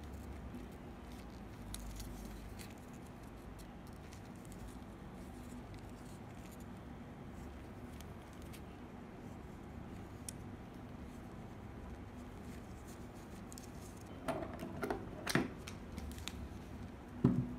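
Hard plastic and metal Beyblade parts handled in the hands, with faint light clicks over a steady low hum. A few louder clacks come near the end as pieces are set down on the table.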